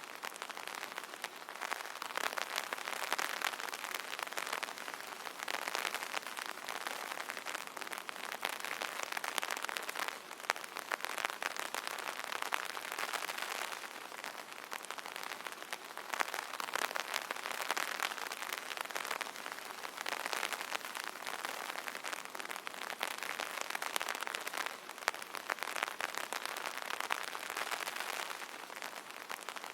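Rain pattering on an umbrella canopy: a dense, steady spatter of fine drops, swelling and easing every few seconds.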